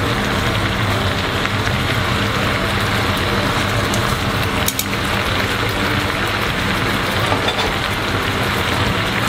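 Garlic-soy sauce bubbling and sizzling hard in a frying pan over high heat, reducing down around chicken thighs, with a steady low hum underneath. There is a single light tap about halfway through.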